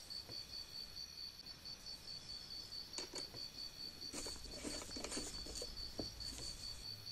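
Light handling of a metal punch tool and its interchangeable tips: a couple of sharp clicks about three seconds in, then a run of small clicks and rattles between about four and six seconds. A faint, steady pulsing high-pitched tone runs underneath.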